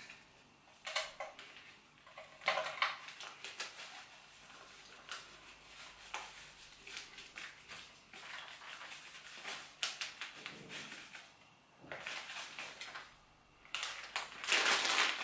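Plastic packet of light brown soft sugar crinkling and rustling as the sugar is poured and shaken out into a plastic bowl, in irregular crackly bursts, loudest near the end.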